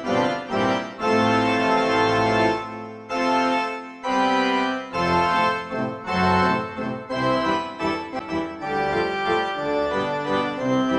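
Background music: a keyboard tune with held, organ-like notes that change every second or so.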